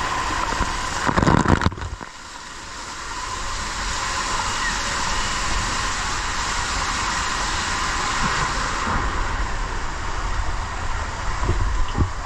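Rider sliding down an enclosed tube water slide. Water and body rush through the tube with a loud burst about a second in, then a steady rushing noise.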